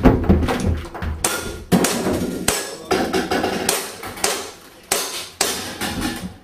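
Footsteps on wooden stairs: about a dozen irregular hollow knocks and thuds.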